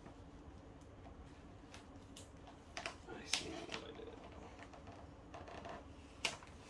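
Faint handling noise: a few scattered light clicks and taps over a low, steady hum.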